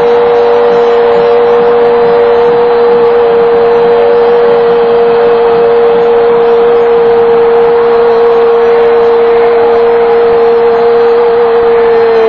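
A football TV commentator's long, drawn-out goal cry of "gol", held on one steady pitch over stadium crowd noise, dropping in pitch as it breaks off at the very end.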